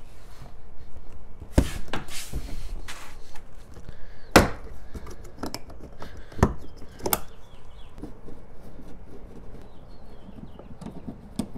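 Hard plastic door-handle trim on a Mk4 VW GTI door panel being pried and pulled loose: scattered sharp plastic clicks and knocks, the loudest about four seconds in. Fainter small ticks near the end as a screwdriver works the Phillips screws behind the trim.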